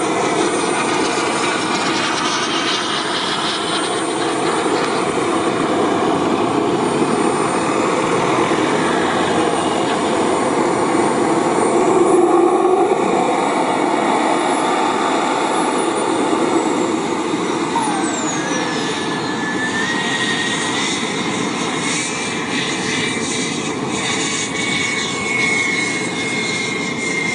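Electric ducted fan model of a UPS freighter jet on its takeoff run and climb-out: a loud, steady rushing whine of the fans. A high tone enters about two-thirds of the way through and rises in pitch before levelling off.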